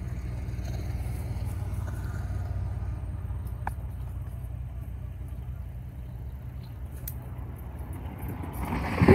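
Steady low hum of an engine running, with one sharp click about four seconds in.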